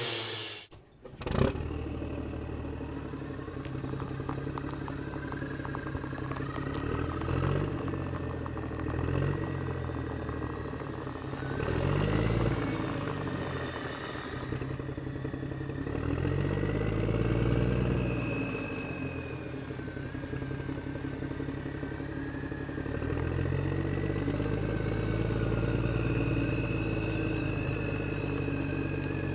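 Radio-controlled model vehicle running, its engine sound going up and down in pitch several times over a high whine. A sharp click comes about a second in.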